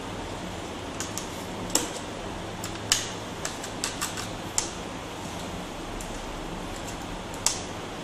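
Scattered sharp clicks and taps of a small screwdriver working the screws hidden under the rubber feet of a laptop's base panel, over a steady background hum.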